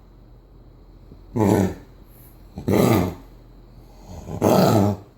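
A 7-month-old puppy coughing three times, about a second and a half apart, each cough a rough burst of about half a second. The coughing is taken by the owner for kennel cough.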